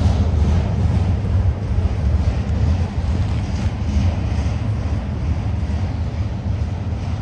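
BNSF diesel locomotives on double-stack freight trains working hard up a steep grade: a steady low rumble, with wind on the microphone.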